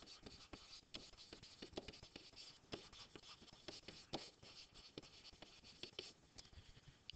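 Stylus writing on a tablet screen: faint, irregular taps and scratches as a short line of words is handwritten.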